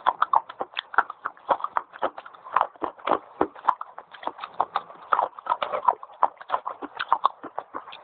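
Fast, crisp crunching as dry white edible clay sticks are bitten and chewed close to the microphone, several crunches a second without a break.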